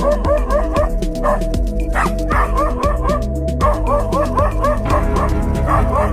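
A dog yipping rapidly, several short high yips a second in a steady run that breaks off briefly twice, over music with a steady beat.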